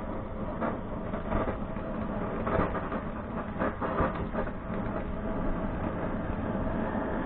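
Portable butane cartridge blowtorch burning steadily as it singes the down off a plucked duck carcass, with a run of short crackles through the middle.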